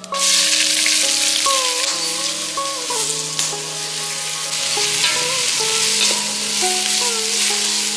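Sliced onions dropped into hot oil in a brass pot, sizzling loudly the instant they land and going on frying while a wooden spatula stirs them.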